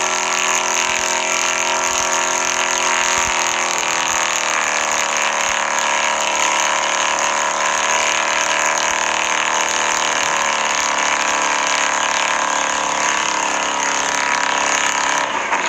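Truck engine running hard at steady high revs, with a dense layer of hiss above it; the pitch shifts slightly a few times.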